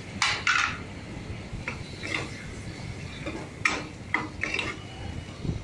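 Metal ladle scraping and clinking against the inside of a pressure cooker while stirring a thick onion-tomato masala, in a series of short strokes, the loudest two right at the start.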